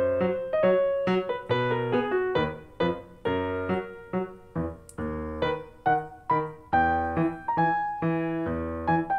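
Background piano music: a steady run of single struck notes over low bass notes.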